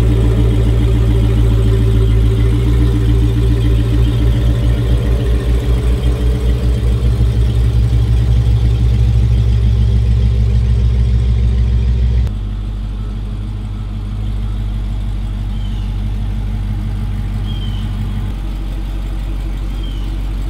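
Car engine idling, a low steady running sound with a pulsing beat, likely the supercharged V8 of a Dodge Charger Hellcat. About twelve seconds in it cuts abruptly to a quieter, steadier engine sound.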